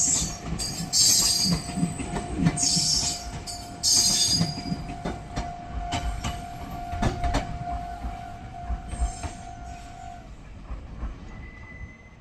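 Meitetsu Nagoya Main Line electric train passing over the level crossing: wheels clacking over rail joints, with high wheel squeals in the first few seconds. The train sound fades as it moves away, and a steady tone cuts off about ten seconds in.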